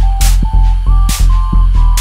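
Electronic background music: a heavy, steady bass, a short synth melody and a snare-like hit just under once a second.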